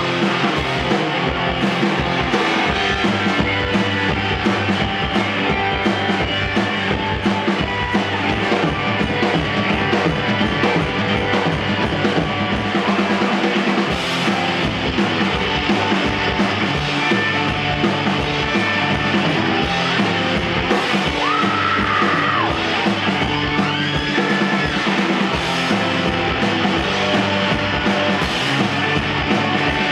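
Rock band playing live through an instrumental passage: electric guitar over bass and drum kit keeping a steady beat, with a brief guitar bend about two-thirds of the way through.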